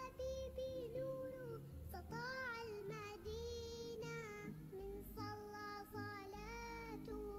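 Background music: a high sung melody with long held notes over low bass notes.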